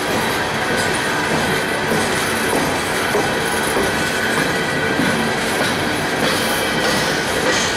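A train's cars rolling past on the rails: a steady, loud rumble and rattle of wheels on track, with a faint thin ringing tone riding over it.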